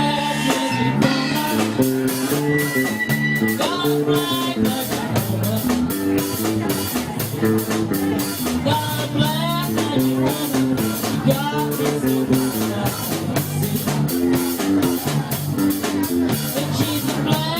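Live rock band playing a blues-rock number: electric guitar lines with string bends over a walking bass line and a steady drum kit beat.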